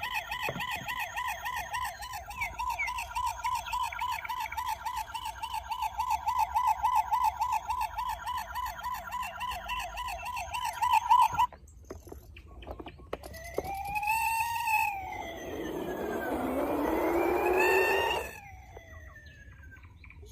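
Toy police car's electronic siren, a fast warbling wail, sounding for about eleven seconds and then cutting off suddenly. After it come two rising-and-falling calls, the second over a swelling rush of noise.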